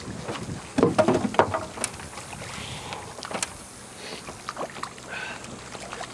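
Splashing and knocking at the side of a small flats skiff as a hooked redfish is brought in, loudest about a second in, then a few scattered clicks.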